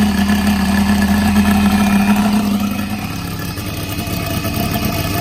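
O.S. FR5-300 five-cylinder four-stroke glow radial model engine, freshly started and running steadily with its wooden propeller. About three seconds in its running note drops and it settles to a slower, quieter, rougher idle as the glow power is switched down to the idle setting.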